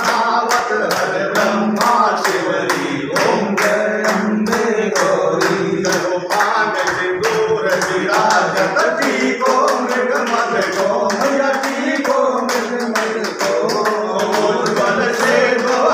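Group of worshippers clapping in steady rhythm, about two to three claps a second, while voices sing a Hindu aarti hymn to the goddess Durga.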